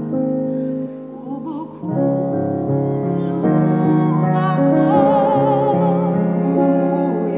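A woman singing a gospel praise song with a wide vibrato over held piano or keyboard chords that change every second or two.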